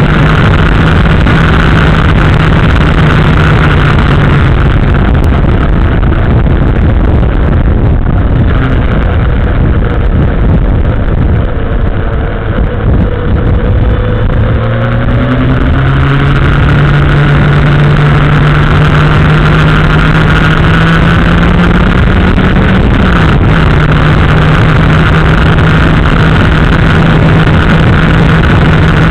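Motorcycle engine running under way, picked up by a camera mounted on the frame right next to the engine block, so it is loud and harsh. The engine note falls and wavers between about 8 and 15 seconds in, then climbs steadily and drops suddenly about 23 seconds in.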